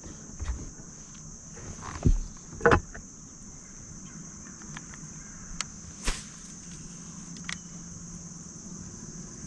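Steady high-pitched buzz of insects such as crickets, with a few sharp knocks and clicks, the two loudest about two seconds in and a moment later.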